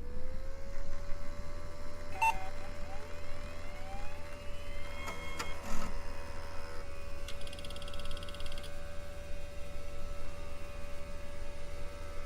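A steady electronic tone that slides up at the start and then holds, over a low hum, with chirping radio-like interference, a few clicks, and a short burst of rapid high-pitched pulsing a little past the middle.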